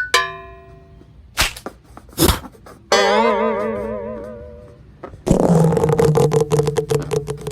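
A run of cartoon-style sound effects. A plucked chord rings out, two short pops follow, then a warbling, wobbling tone, and near the end a buzzy, rapidly pulsing raspberry-like tone.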